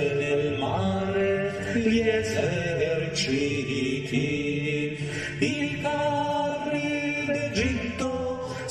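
Men's voices singing a hymn together, holding long notes that move from one pitch to the next every second or so.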